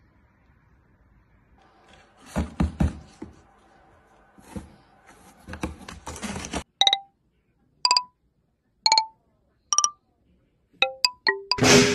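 Knocks and clicks of a cardboard box being handled. Then a run of short beeps, about one a second, ending in a quick cluster of higher and lower beeps.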